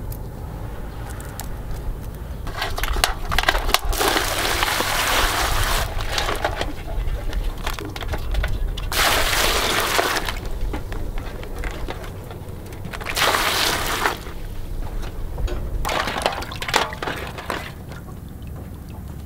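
Water sloshing and splashing in an aluminium basin as live mud crabs are handled and washed by hand, in about four bursts a few seconds apart, with clicks of the crabs' shells knocking against the basin.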